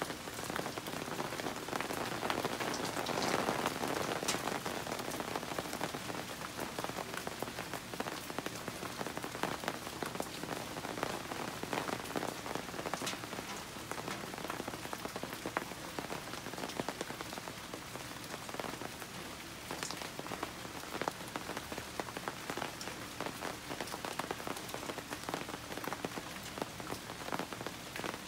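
Steady rain falling on leaves and a wooden deck, with many close drops heard as separate ticks; a little heavier about three seconds in.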